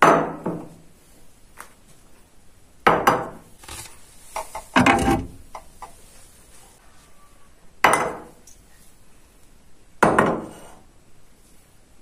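Filled glass jars being set down one after another on hard surfaces: five sharp clunks a couple of seconds apart, each dying away within about half a second.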